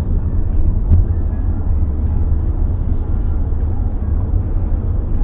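Steady low rumble of a car's engine and tyres heard inside the cabin while driving, with a light click about a second in.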